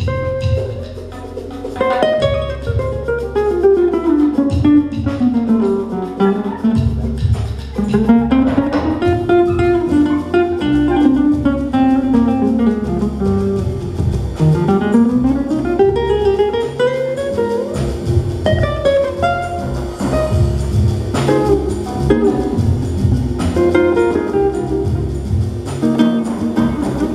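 Jazz-inflected Latin band music led by an acoustic guitar playing melodic runs that climb and fall, over electric bass and light percussion.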